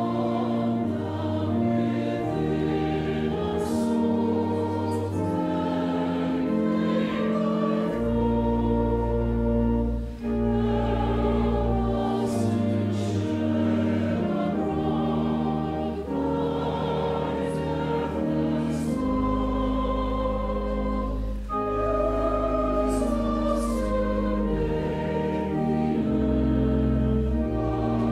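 Choir singing slow, sustained chords over deep bass notes.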